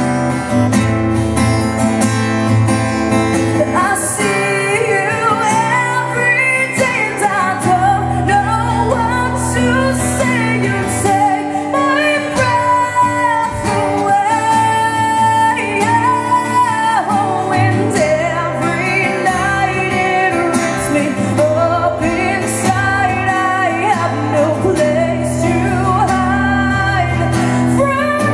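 A woman sings with her own strummed acoustic guitar in a live performance. The guitar plays alone for the first few seconds, and her voice comes in about four seconds in and carries on over the strumming.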